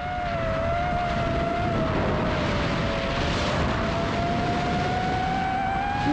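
Steady hum of an FPV drone's electric motors and propellers, with air rushing past. The pitch wavers slightly and creeps upward, and the sound swells in at the start.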